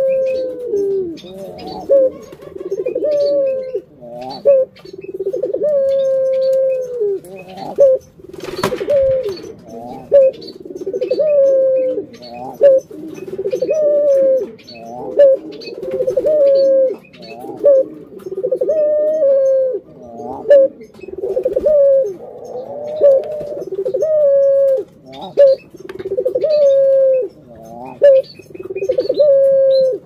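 Caged ringneck doves (burung puter) cooing over and over, a low rolling coo roughly every one to two seconds, with a single sharp knock about a third of the way through.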